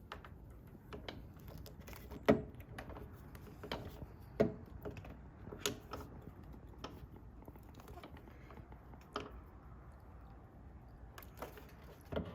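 Scattered light clicks and knocks of hand tools against metal: a socket wrench on extensions being worked on a stubborn fastener, with two sharper knocks about two and four and a half seconds in.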